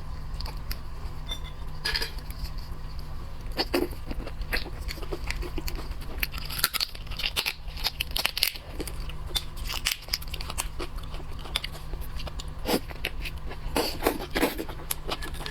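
Crunching and chewing of Chaoshan-style raw-marinated small lobster, with irregular cracks and crackles of shell and flesh over a low steady hum.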